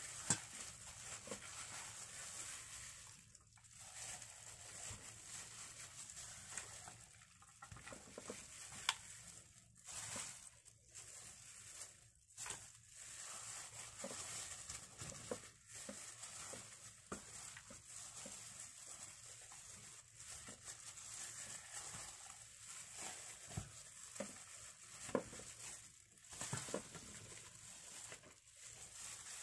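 Faint, irregular rustling and squishing of a plastic-gloved hand rubbing a chopped ginger, garlic and shallot mix over a raw whole chicken, with scattered light taps against the glass baking dish and steel bowl.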